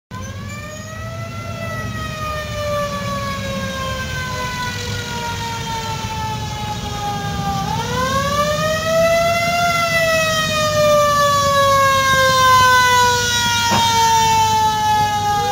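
A siren rising quickly in pitch and then falling slowly, twice, and starting to rise a third time at the end, over a steady low rumble of car engines. A single sharp click comes near the end.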